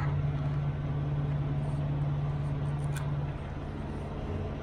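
A running motor's steady low hum. Its strongest tone cuts out a little after three seconds in, leaving a quieter hum, with a faint click just before.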